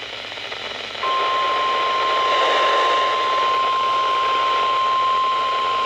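NOAA Weather Radio receiver hissing with static, then about a second in the 1050 Hz Warning Alarm Tone starts: one steady, unbroken beep held over the hiss. It is the alert tone that comes before a broadcast warning, here a severe thunderstorm warning.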